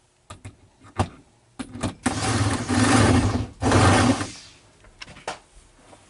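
Cordless power driver running in two bursts, one about a second and a half long and a shorter one just after, driving home the bolt that holds the seat belt retractor to the car's floor. A few sharp metal clicks of parts being handled come before it.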